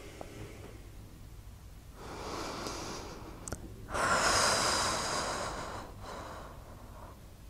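A person breathing heavily: one breath about two seconds in, then a louder, longer breath like a sigh about four seconds in, and a weaker one near the end.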